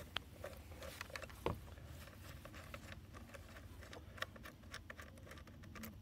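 Faint, irregular clicks and ticks of a screwdriver turning the bolt out of a small ATV battery's negative terminal.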